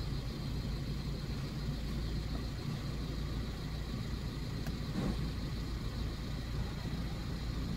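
Car engine idling, a steady low hum heard from inside the cabin, with a faint click or two about five seconds in.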